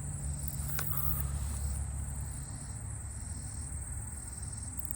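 Common meadow katydids singing close by: a high-pitched insect song that alternates between louder buzzing stretches and quieter ticking stretches, with a low rumble underneath and a single click about a second in.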